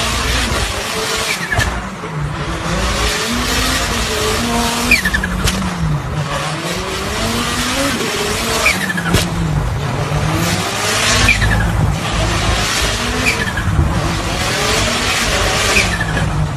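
Toyota GR Yaris Rally1's turbocharged four-cylinder engine driven hard, its pitch dropping and climbing again every couple of seconds through shifts and corners. Sharp exhaust cracks come at the shifts, over a steady hiss of tyres on loose gravel.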